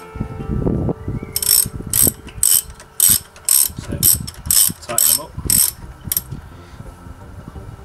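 Socket ratchet clicking in a run of quick strokes, about two a second, while a 15 mm brake caliper carrier bolt is wound in by hand.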